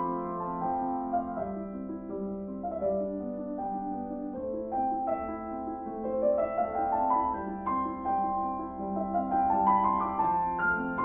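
Background piano music: a solo piano playing flowing runs of notes, some climbing in pitch.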